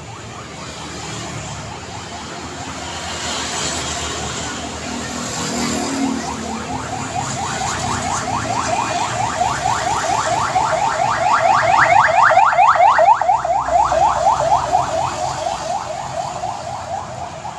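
Electronic warning siren of fast, rapidly repeating rising whoops, several a second. It grows louder over several seconds, peaks, then fades away, over steady road-traffic noise.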